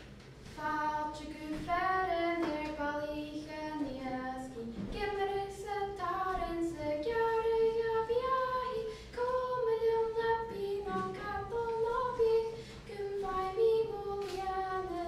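A young girl's voice singing unaccompanied: a slow melody with long held notes.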